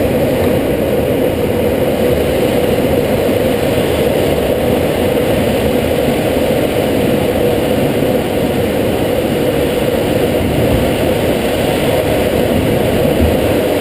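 Steady rushing of air around a sailplane's canopy in flight, heard from inside the cockpit.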